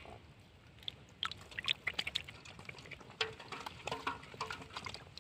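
Water splashing and dripping in short, irregular bursts, with scattered small knocks.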